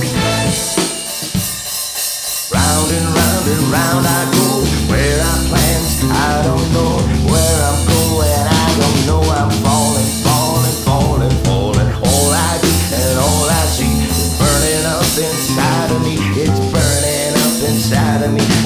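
Instrumental break of a rock song: drum kit and bass under a wavering lead melody. The band thins out about half a second in and comes back in full about two and a half seconds in.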